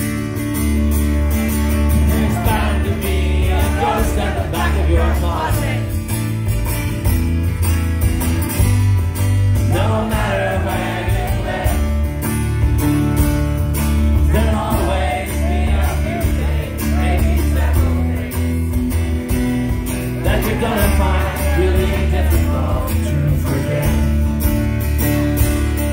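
Live indie rock band playing: a man singing over strummed acoustic guitar, piano, drums and electric bass, the singing coming in phrases with short instrumental gaps between.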